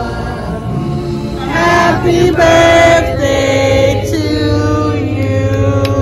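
Music with singing voices holding long notes over a steady low bass note.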